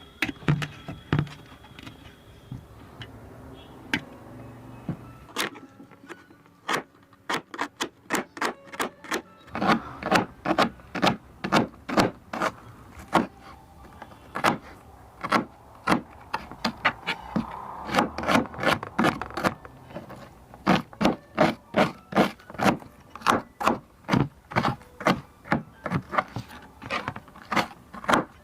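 Kitchen knife chopping on a cutting board: a few scattered knocks, then from about five seconds in a steady run of strokes, about two to three a second.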